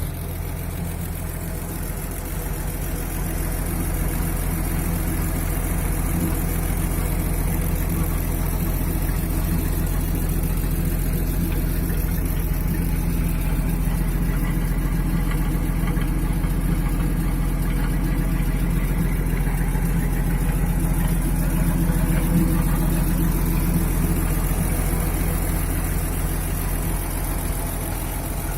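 GAZ-63 truck's engine idling steadily.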